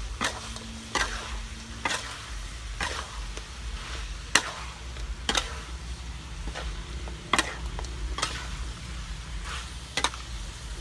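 Duck meat stir-frying in a steel wok: a steady sizzle, with a metal spatula scraping and knocking against the pan about once a second.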